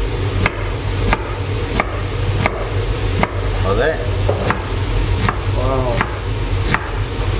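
Chef's knife dicing an onion on a wooden cutting board: evenly spaced chops, about three every two seconds, each blade stroke knocking on the board.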